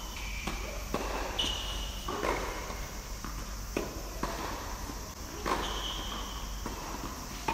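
Tennis rally with low-compression green tennis balls: rackets striking the ball and the ball bouncing on a hard court, a sharp pop about once a second.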